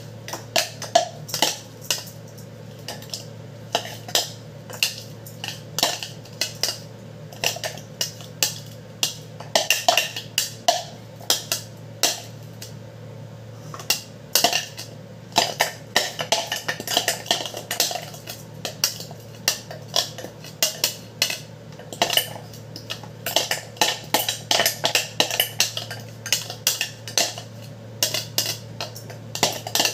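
Irregular clicks, knocks and scrapes of a utensil against a clear plastic food-chopper bowl as chopped chilies are scraped out of it, over a low steady hum.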